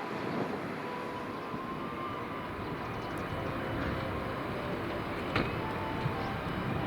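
Jet airliner engine noise: a steady rush with a faint whine, slowly growing a little louder, and a sharp click about five seconds in.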